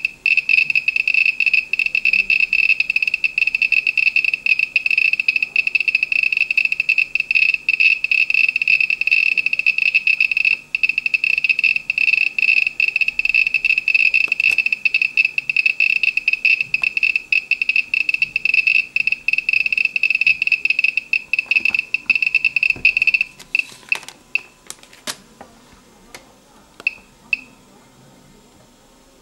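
A homemade Geiger counter with an SBM-20 tube beeps a high-pitched chirp for every count, so fast beside a radioactive sample (about 26 counts a second) that the beeps nearly merge into a continuous buzz. About 23 seconds in there are a few knocks as the sample is handled away. After that only scattered single beeps remain, the background count.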